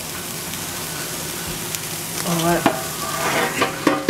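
Beef burger patties sizzling on a hot charcoal grill grate, a steady frying hiss. From about halfway through, a few short, louder pitched sounds with several tones rise above it.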